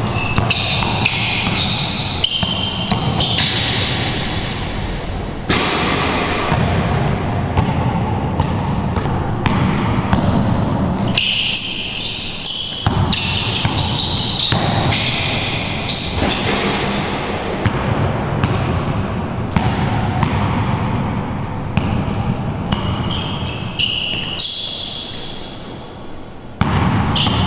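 A basketball being dribbled hard on a concrete court in a run of sharp repeated bounces, with short high squeaks from sneakers as the players cut and change direction.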